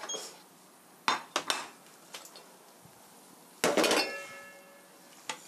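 Kitchenware being handled on a table: a few light knocks about a second in, then about three and a half seconds in a louder clatter of dishes and metal utensils that leaves a short metallic ring.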